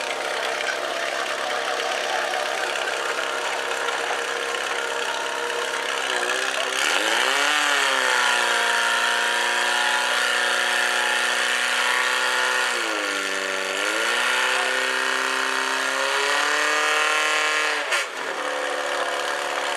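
Portable fire pump's engine running, revved up about six seconds in and held at high speed to drive water through the hoses, with a brief dip around thirteen seconds. Its speed drops sharply near the end as the run finishes.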